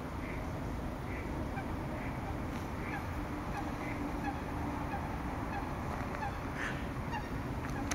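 Short bird calls repeating at a steady pace, a little under one a second, over a steady low background rumble; the calls are typical of distant waterfowl in a wetland.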